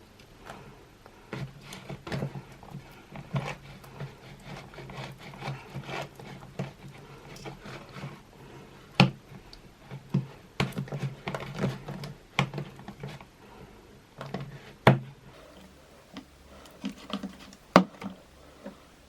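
Clear slime with Orbeez water beads being squeezed and pressed by hand, making an irregular run of small sticky pops and clicks, with a few sharper, louder pops.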